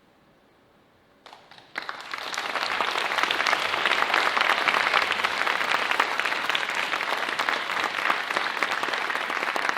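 Audience applause. After about a second of near silence a few scattered claps break in, then the whole house joins in, and the clapping rises quickly and holds steady.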